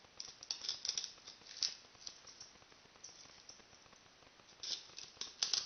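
Compass pen tracing a circle on a foam sphere: short, irregular scratchy squeaks of the pen tip and the hands on the foam, thinning out in the middle and picking up again near the end.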